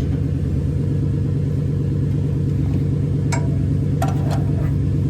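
A steady low mechanical hum, with a few short metallic clinks about three and four seconds in.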